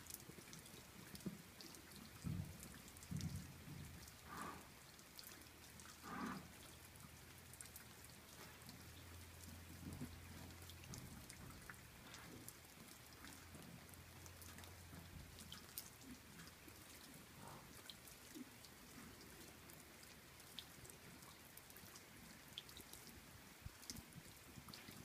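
Faint rain: scattered raindrops ticking close by over a light patter, with a few soft low thumps in the first several seconds.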